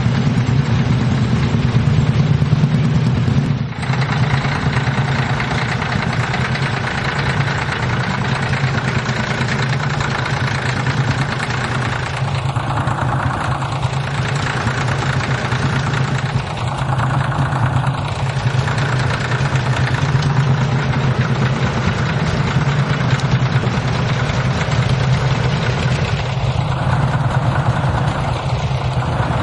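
Dutra D-4K/B tractor's diesel engine idling steadily.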